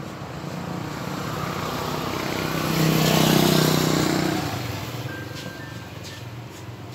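A motor vehicle driving past on the road, its engine and tyre noise swelling to a peak about three seconds in and then fading away.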